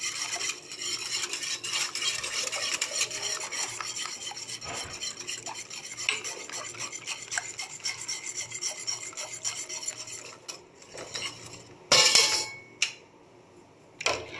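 Wire whisk beating thickened tomato soup in a metal pan, a fast scraping rattle of the wires against the pan for about ten seconds, breaking up flour lumps. A louder clatter follows about twelve seconds in, and another right at the end.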